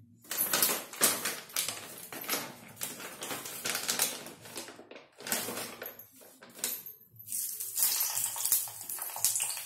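Plastic packet of ready-made French fries crinkling and rustling as a hand digs into it, then the fries going into hot oil in a kadhai and sizzling steadily from about seven seconds in.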